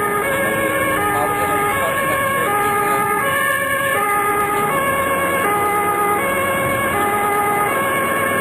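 Ambulance's German two-tone siren (Martinshorn) sounding its steady high–low alternation, switching pitch about every two-thirds of a second, heard from inside the cab over engine and road noise.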